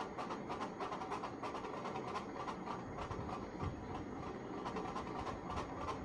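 Budgerigar husking seed held in a hand: rapid, irregular little crackling clicks, several a second.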